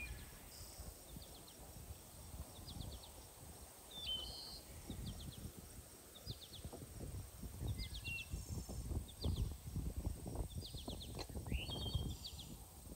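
Small birds singing in short high chirping phrases that repeat every second or two. Under them, soft rustling and light knocks of a raw lamb carcass being handled and wiped with a cloth on a wooden board, busier in the second half.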